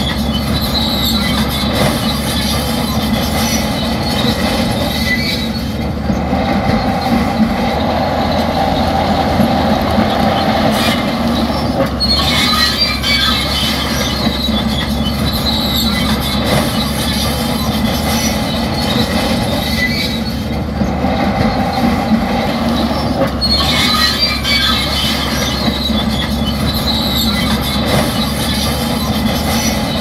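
Shantui crawler bulldozer working, its diesel running steadily under the high metallic squeal and clank of its steel tracks.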